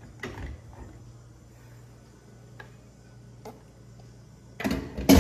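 Kitchen utensils being handled while brigadeiro is spread on a cake: a few light ticks and taps, then a loud clatter or scrape near the end, over a steady low hum.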